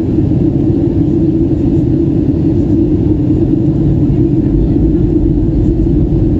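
Steady low roar of a Boeing 737's engines and airflow, heard inside the passenger cabin while the plane descends to land.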